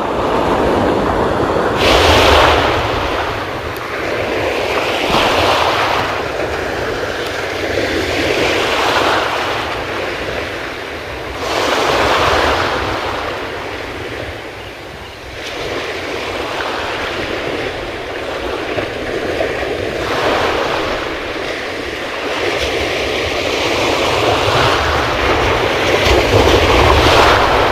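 Sea surf breaking and washing up a stony beach, swelling and falling back every three to four seconds.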